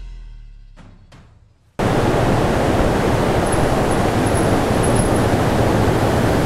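Background music fading out, then from about two seconds in the loud, steady rush of falling water at Ravana Falls, a large waterfall.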